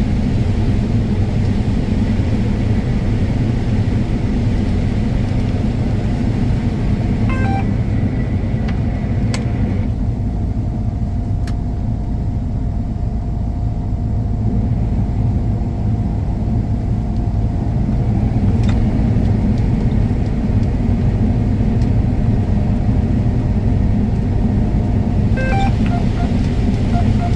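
Combine harvester running steadily while harvesting corn, a constant deep engine and machinery drone, with a few faint clicks now and then.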